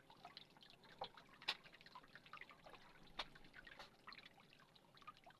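Faint, scattered drips and small splashes of water, with a few sharper ticks, the clearest about a second and a half in and a little after three seconds in.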